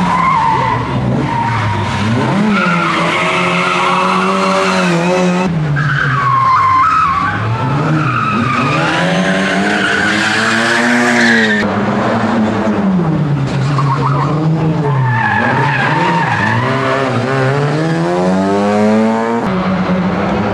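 Rally car engine revving hard, its pitch rising and falling again and again as it accelerates and lifts through tight turns, with tyres squealing.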